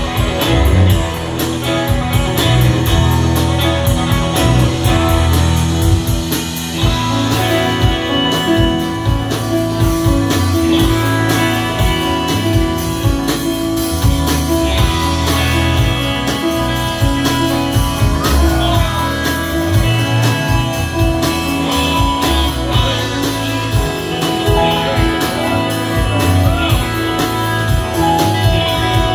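A rock band playing live, with electric guitars, bass and drums, in a mostly instrumental stretch, heard from the audience.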